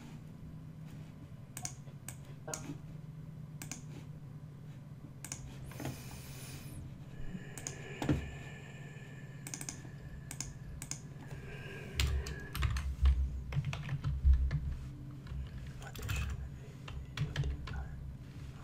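Typing on a computer keyboard: scattered key clicks while a file name is entered, over a faint steady low hum. A cluster of louder low thuds comes about two-thirds of the way through.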